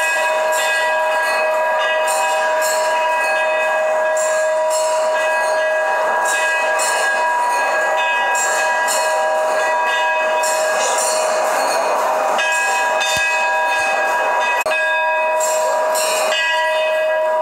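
Temple bells ringing without pause during aarti before the deity: a steady, unbroken clanging with several sustained ringing tones.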